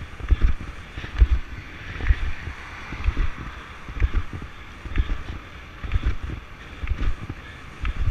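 Wind buffeting the camera's microphone over the rolling of longboard wheels on the road, with regular low thumps about once a second.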